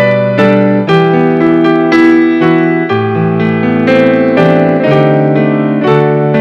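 Keyboard music: a piano-sounding keyboard playing a slow, steady run of sustained chords and melody notes, struck roughly every half second.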